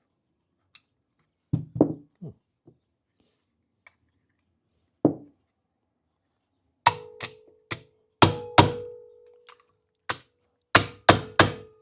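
Valve stem tops on a freshly assembled Triumph TR6 cylinder head being given sharp smacks. A few soft knocks come first, then about eight sharp strikes in the second half, some leaving a short metallic ring. The smacks are an old habit meant to seat the valve springs and valves.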